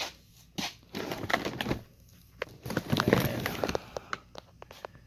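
Fireworks packaging being handled: cardboard and plastic wrap crinkling, with a run of sharp clicks and knocks.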